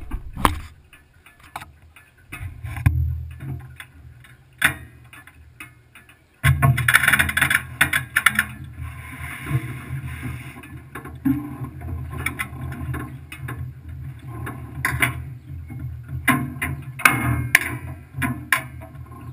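Trophy truck engine starting about six seconds in and then idling with a steady low rumble, after several seconds of knocks and clicks from the camera mount being handled on the chassis.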